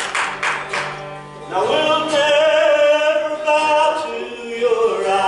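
A man singing to an acoustic guitar: strummed chords first, then about a second and a half in his voice comes in on a long held note, stepping down to a lower note near the end.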